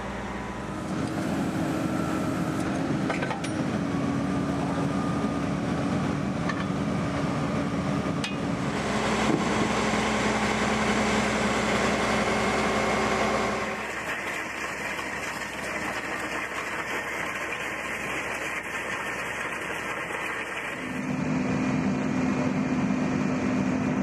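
Drill rig's engine and drilling mechanism running steadily while drilling a monitoring-well hole. The engine's pitch and load shift a few times: it gets louder about 9 seconds in, drops back about 14 seconds in, and picks up again about 21 seconds in.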